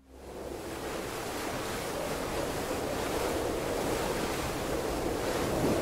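Ocean waves washing with wind, a steady rushing noise that fades in from silence and slowly builds.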